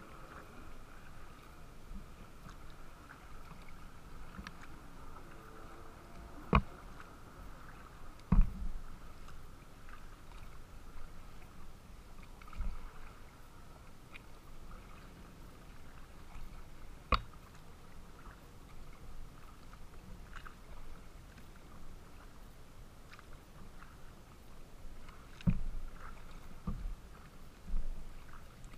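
Small waves lapping and splashing against the hull of a Pungo 140 kayak under way on choppy water, with a handful of sharp knocks against the boat.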